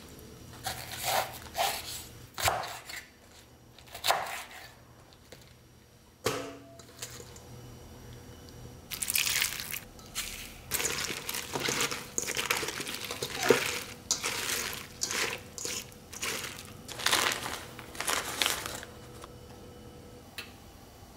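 Knife cutting through napa cabbage on a bamboo cutting board, a few separate crisp crunches. After that comes a dense run of crinkly handling sounds as the cut cabbage is mixed with salt and water in a stainless steel bowl.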